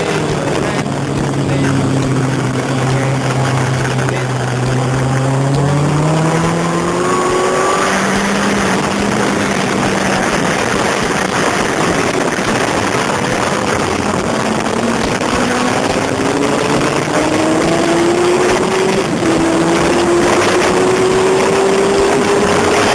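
Sport motorcycle engine heard from on board at track speed, with heavy wind rush over the microphone. The engine note climbs slowly through the first third, holds steady, then rises again in the last third with a short drop about four-fifths through, as at a gear change.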